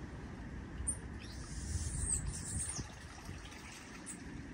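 A small bird chirping from the mangroves: a quick run of high, squeaky calls from about a second in, and one more near the end, over a steady low rumble.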